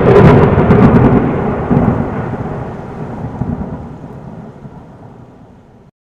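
Intro sound effect: a sudden crash with sharp cracks at the start, then a deep thunder-like rumble that fades steadily and cuts off shortly before the end.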